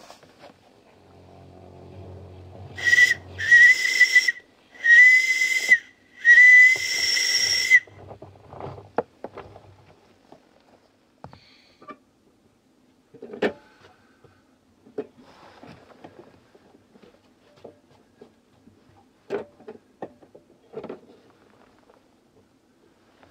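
Steam whistle of a live-steam garden-railway locomotive blown four times about three seconds in: a short toot, then three longer, breathy blasts on one steady high note, the last the longest. Faint scattered clicks and knocks follow.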